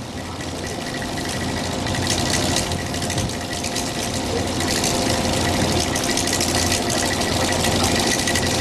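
Steady hum of a ship's onboard machinery (engine or generator plant), with a few constant tones in it, under a rush of wind and sea that grows a little about two seconds in.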